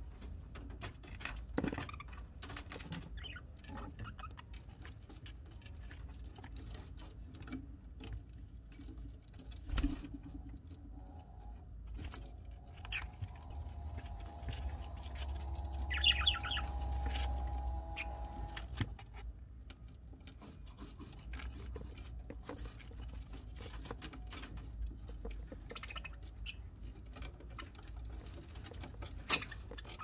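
Budgerigar chicks shuffling and scratching in seed-husk bedding in a cardboard nest box: a run of small irregular clicks and rustles, with a brief high chirp about halfway through.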